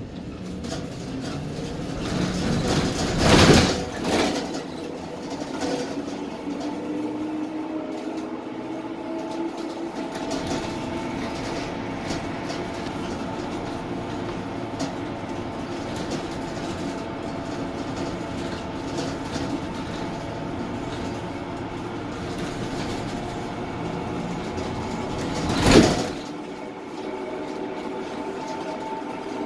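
Cabin noise of a 2018 Arboc Spirit of Freedom shuttle bus on the move: its GM Vortec 6.0L V8 engine running under steady road noise, its note rising slowly as the bus gathers speed several seconds in. Two brief loud whooshes stand out, about three seconds in and near the end.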